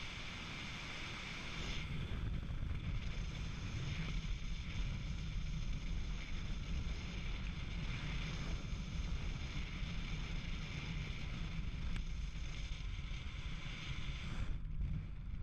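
Wind rushing over an action camera's microphone in paraglider flight: a steady low rumble with no break.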